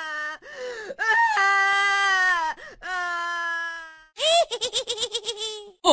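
High-pitched, cartoon-style crying voice: several long, drawn-out wails, then a quick run of laughter from about four seconds in.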